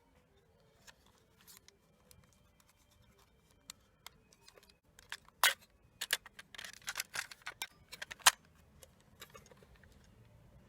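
Small sharp clicks and light rattles from a cassette Walkman being handled. A few isolated clicks come first, then a quick flurry of clicks a little past the middle, the last one the loudest.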